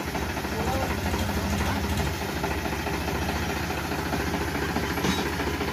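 Powertrac Euro 50 tractor's three-cylinder diesel engine running steadily at low revs.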